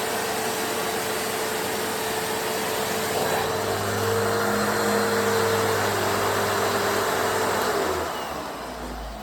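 Hoover HushTone commercial vacuum cleaner running with an extension wand on the hose, its motor getting a little louder about four seconds in. Near the end the motor pitch drops and the sound fades as it winds down.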